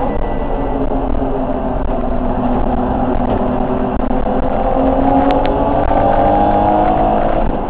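BMW E30 325 race car's straight-six engine running hard, heard from inside the stripped cockpit, with the revs climbing steadily through the second half under acceleration.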